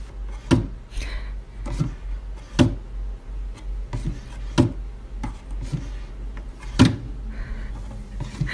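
A series of sharp knocks or taps, roughly one a second and unevenly spaced, over a steady low hum; the loudest comes near the end.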